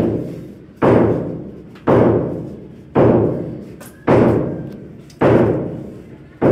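Hammer blows on a bare brick wall during conduit work for concealed wiring, a steady single blow about once a second, six in all, each echoing off the bare walls.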